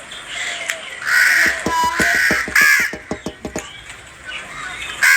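Harsh bird calls: three in close succession a little after a second in and one more near the end, over a run of quick clicks.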